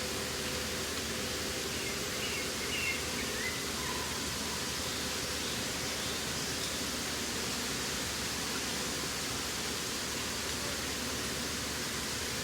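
Many sound effects layered all at once, merging into a steady, even hiss like rushing water, with a few faint short chirps showing through.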